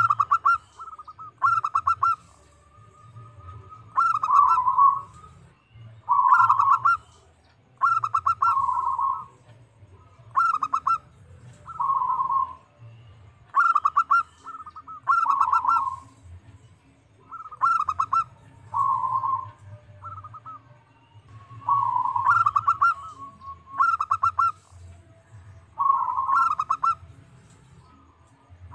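Zebra dove (perkutut) cooing its song over and over: each phrase is a quick run of clipped coo notes ending in a lower rolling coo, repeated about every two seconds.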